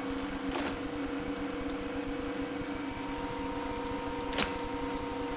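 Gorton 9-J milling machine running on a VFD and rotary phase converter: a steady electric motor hum with a whine over it. A light click comes about half a second in and a louder one a little after four seconds.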